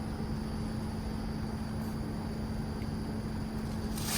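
Outdoor unit of a Ducane LYNX 18 inverter heat pump running in heat mode: a steady hum over a low rumble from the compressor and slow four-blade condenser fan. The owner thinks it sounds like the coils are pretty frozen.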